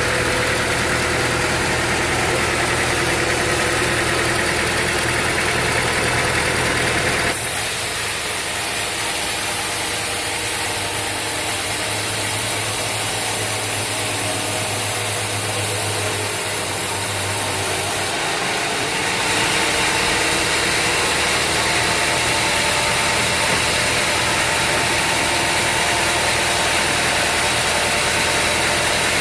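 Sawmill machinery running steadily with an engine-like hum, the sound changing abruptly about 7 seconds in and again about 18 seconds in.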